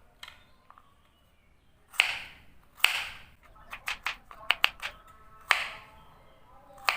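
Garlic cloves dropped into a blender jar: a string of sharp knocks and clinks with a short ring, two about two seconds in, a quick cluster in the middle, and more near the end.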